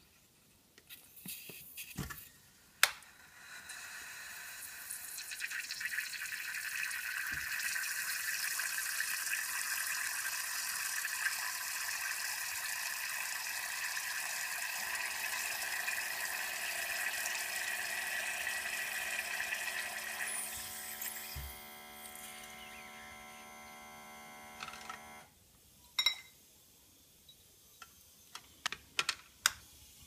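La Pavoni Professional lever espresso machine pulling a shot. A sharp click about three seconds in is followed by a steady hiss as hot boiler water fills the group, lasting until about twenty seconds in. A steady hum joins for the second half, and a few clicks come near the end.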